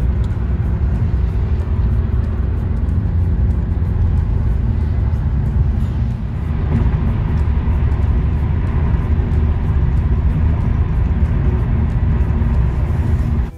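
Steady low rumble of a car driving, heard from inside the cabin: tyre and engine noise with no let-up.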